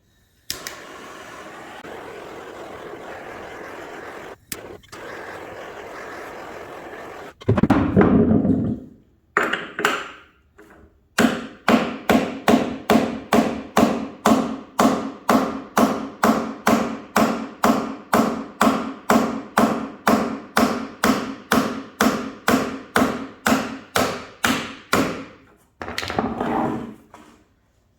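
A handheld torch hisses steadily as it heats the washer's bearing housing. Then comes a long, even run of ringing hammer blows, nearly three a second, on a socket, driving the old drum bearing out of its housing.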